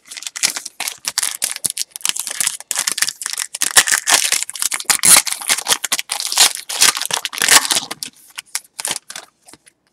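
Plastic wrapper of a 2020 Panini Diamond Kings baseball card pack crinkling and rustling as it is torn open, thinning to a few light ticks near the end.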